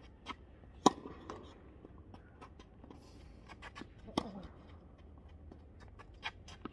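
Tennis ball struck by a racket: sharp pops about a second in and around four seconds, and a lighter one near the end, with fainter taps in between.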